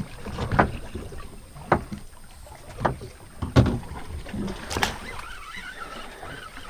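Boat drifting at sea: water lapping against the hull under a low rumble, with about five sharp knocks spread through.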